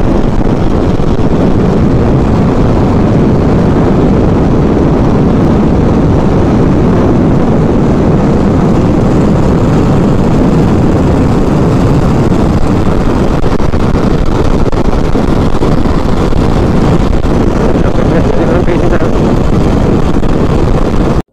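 Motorcycle engine and wind rushing over the on-bike microphone at a steady highway cruise, a dense, even noise that does not rise or fall.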